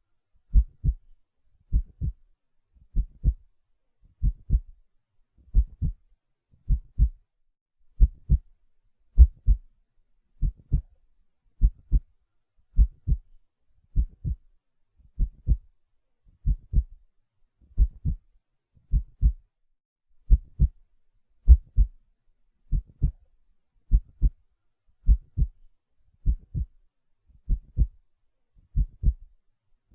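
Heartbeat, a steady slow lub-dub of paired deep thumps, a little slower than one double beat a second.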